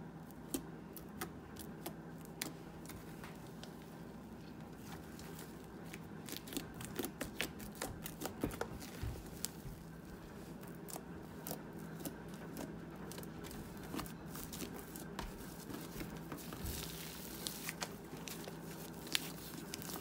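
Homemade borax-free slime being pressed and squeezed by hand: soft sticky crackling with scattered small pops and clicks, thicker in a few stretches, over a faint steady hum.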